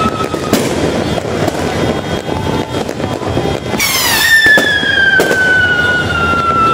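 Fireworks going off. A shrill whistle slowly falling in pitch cuts off with a sharp crack about half a second in. A second whistle starts with a loud burst just past the middle and slides slowly down. Both sit over a constant din of crackling and popping firecrackers.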